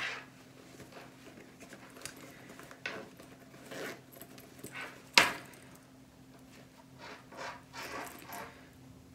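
Fabric rustling and small metal clicks as a thin metal bag frame is worked into a fabric channel and sticks instead of sliding in, with one sharper click about five seconds in.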